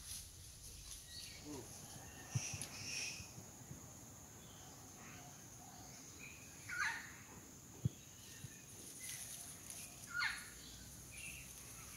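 Faint tropical forest ambience: a steady high insect hum with scattered bird calls, among them two louder down-sweeping calls in the second half, and a single sharp tap.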